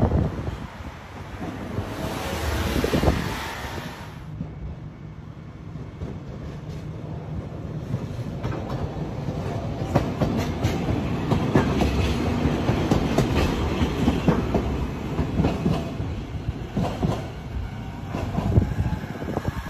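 A Fukui Railway F2000 'Fukuram Liner' tram rolling past close by on ballasted track, its wheels clicking over the rail joints. The clicking grows louder from about ten seconds in as the tram draws level.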